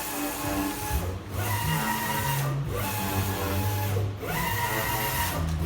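Olympos 60x90 UV flatbed printer running, its print carriage sweeping back and forth with a steady motor whine. The whine drops out briefly about every one and a half seconds, four times, as the carriage reverses, and ramps back up after each drop.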